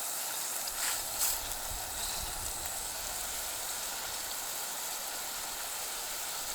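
Burger patty sizzling in a frying pan: a steady hiss, with two light clicks about a second in.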